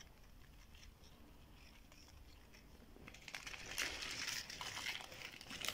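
Plastic sweet wrappers on a hand-held garland of dried fruit crinkling and rustling as it is moved. The rustling starts about three seconds in and is full of small clicks.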